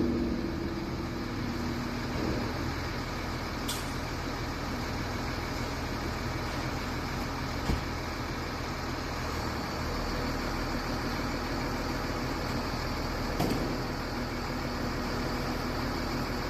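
A machine running steadily with a low hum, with a few sharp clicks or knocks over it.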